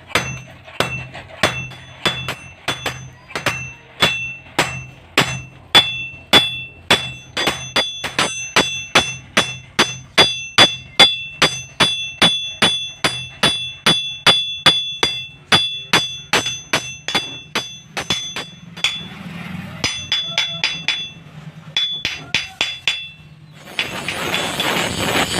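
Hammer blows ringing on steel and anvil while forging a knife blade, about two to three strikes a second and speeding up after the first few seconds. The blows stop briefly about three quarters of the way through, then start again. Near the end a loud steady rushing noise takes over.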